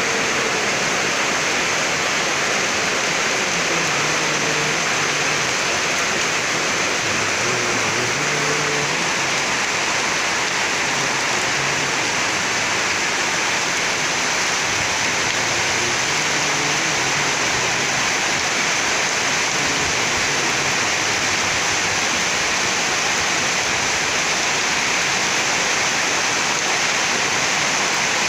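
Rainwater pouring off roofs in heavy rain, splashing onto the ground and running down steps: a steady, loud rushing and splashing.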